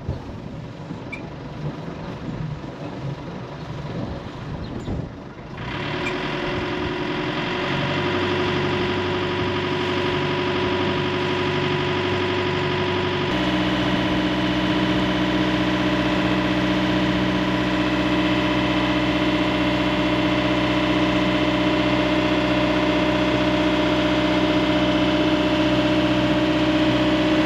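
Wind buffeting the microphone for the first few seconds, then a sailboat's inboard engine running steadily at low speed from about six seconds in, as the boat motors through the canal.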